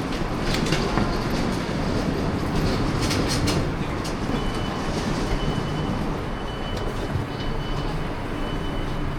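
Passenger train running on the rails: a steady rumble with a low hum and a few sharp clicks in the first few seconds, then a thin high whine that comes and goes from about four seconds in.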